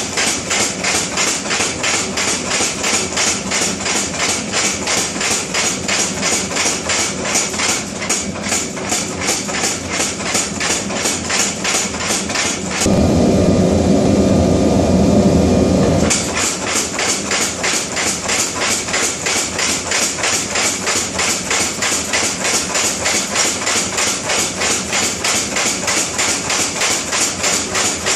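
Power hammer striking hot steel in a fast, steady run of blows. About halfway through, the blows stop for about three seconds and give way to a louder steady rushing noise, then resume.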